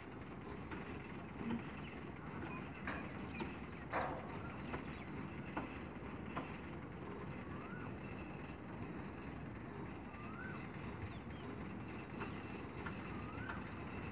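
Steady low rumble of an idling diesel truck engine, with a sharp knock about four seconds in and a few short bird chirps in the second half.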